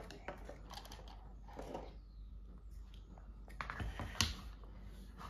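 Plastic toys and pieces being handled on a tabletop: scattered light clicks and taps, with one sharper click about four seconds in.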